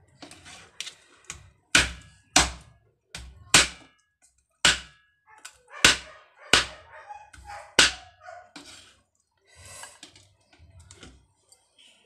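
Roasted pork head being chopped with a heavy knife on a cutting board: about seven loud chops, roughly one a second, with lighter knocks in between.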